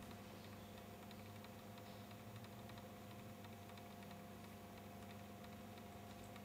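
Near silence: room tone with a steady low hum and faint, scattered small ticks.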